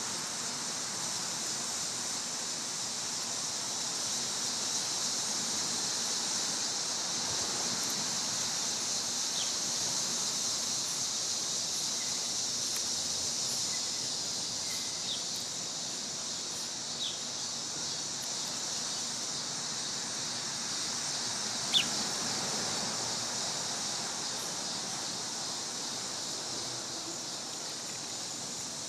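Steady high-pitched drone of cicadas, with a few short, sharp bird chirps scattered through it. The loudest chirp comes about two-thirds of the way in.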